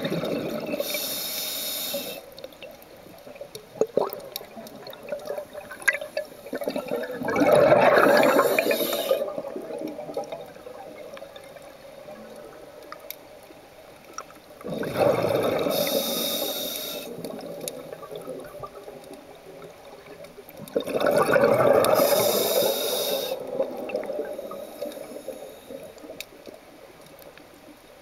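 Scuba diver's breathing through an open-circuit regulator, heard underwater: twice, a short hiss of an inhale through the regulator is followed a few seconds later by a longer, louder rush of exhaled bubbles.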